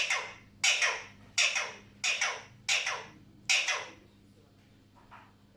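Alexandrine parrot giving a run of six harsh, loud calls at an even pace of about three every two seconds, stopping about three and a half seconds in; one faint call follows.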